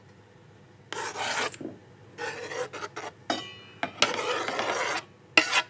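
A knife blade scraping chopped roasted eggplant off a wooden cutting board into a mixing bowl, in about five short rasping strokes.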